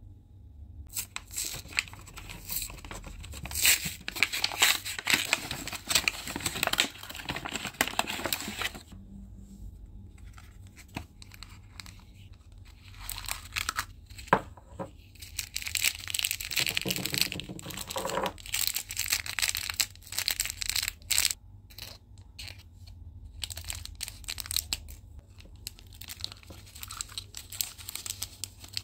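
Plastic toy packaging and a small plastic bag being torn open and crinkled by hand, in three bouts of crackling with short pauses between them.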